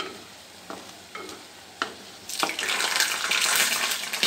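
A flat spatula stirs fried thaen mittai balls through sugar syrup in an aluminium pressure-cooker pan, knocking and scraping the metal every half second or so. A bit over halfway a loud, steady hiss starts and holds.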